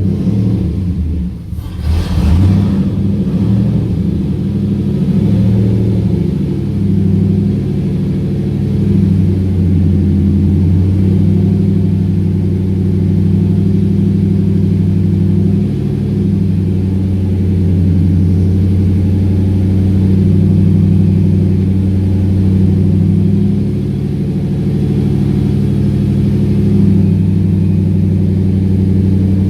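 Whipple-supercharged 5.4-litre V8 of a 2003 Ford SVT Lightning on a cold start. It stumbles at first, catches about two seconds in, then settles into a steady idle whose pitch wavers slowly.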